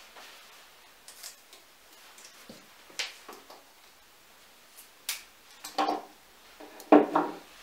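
Garden secateurs snipping flower stems, with handling of stems and leaves: a few sharp separate clicks and snips, the loudest near the end.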